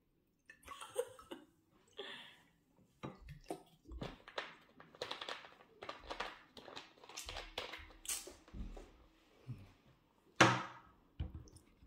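Thin plastic water bottle crinkling and crackling as it is handled, in short irregular spells, with one sharp knock about ten and a half seconds in that is the loudest sound.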